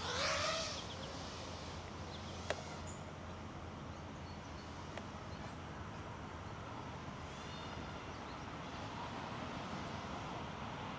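Faint outdoor ambience: a steady low hum and hiss, with a few faint bird chirps and a single sharp click about two and a half seconds in.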